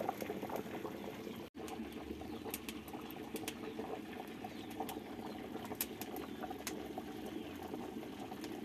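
Beef and potato stew bubbling in a pot: a steady, crackly simmer with scattered small pops.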